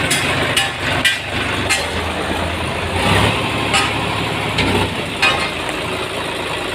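Sonalika DI 35 tractor's three-cylinder diesel engine running as the tractor is driven, pulling strongly on its newly fitted clutch plate and pressure plate. The engine note swells from about two seconds in and eases off near five seconds, with a few sharp clicks over it.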